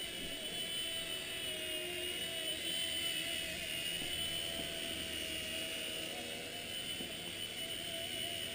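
Small Xieda 9958 radio-controlled helicopter whirring in flight: its electric motor and rotor give a steady high whine that wavers slightly in pitch.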